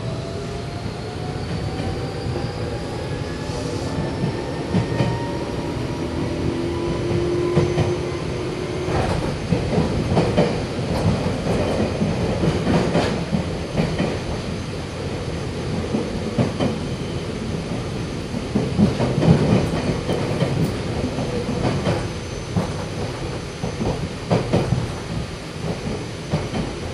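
Meitetsu 6000-series resistance-controlled electric multiple unit heard from inside the passenger car. The traction motors' whine rises in pitch over the first eight seconds or so as the train accelerates. The train then runs at speed, with the wheels knocking over rail joints now and then.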